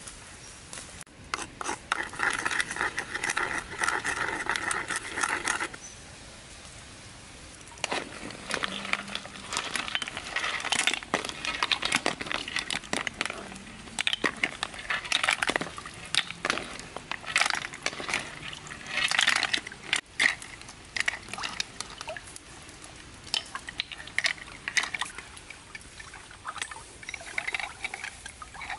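A wok of river snails boiling and bubbling over a wood fire, then tipped out into a wicker basket: water pouring and splashing, and the hard shells clattering together, with the fire crackling. Near the end, hands shuffle the snail shells in the basket.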